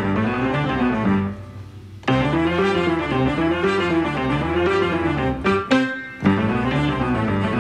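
Background instrumental music, with low strings carrying a repeating line. It drops away briefly twice, once about a second and a half in and again near six seconds.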